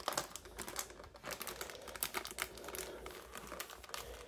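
Thin plastic packaging bags crinkling and rustling irregularly as they are handled.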